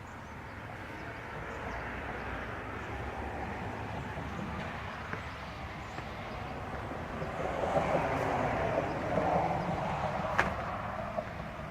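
Road traffic: a steady hiss of tyre and engine noise that swells as a vehicle passes, loudest about two-thirds of the way through, with one sharp click near the end.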